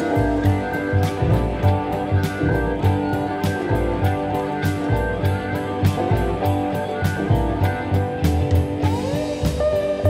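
Background music: guitar over a steady drum beat, with a short sliding note near the end.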